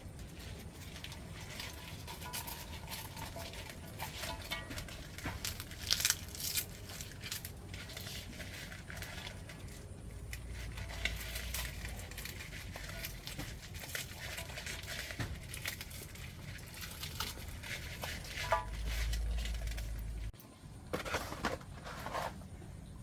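Crinkling and crackling handling noise with many scattered sharp clicks, as food and materials are worked by hand; a low rumble comes in twice.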